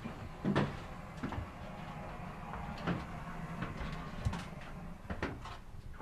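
Scattered knocks and clicks of footsteps and movement inside a submarine's metal compartment, over a faint steady low hum.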